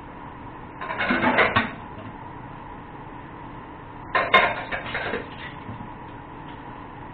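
Utensil clattering against a cooking pot in two short bursts, one about a second in and one about four seconds in, over a steady background hiss.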